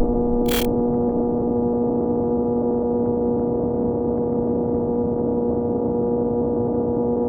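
Kawasaki Ninja ZX-6R inline-four idling through an M4 exhaust with the dB killer removed, a steady, unchanging drone. A brief click about half a second in.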